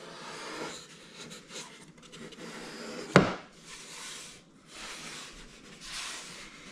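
Hands rubbing and sliding over balsa wood as a hinged balsa battery hatch is swung shut onto a model plane fuselage, with one sharp wooden knock about three seconds in as the hatch seats.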